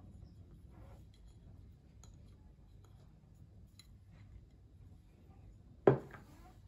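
Faint handling sounds as raisins are tipped from a small container into a glass bowl of diced apples, then a single sharp knock on a hard surface about six seconds in, with a short ring after it.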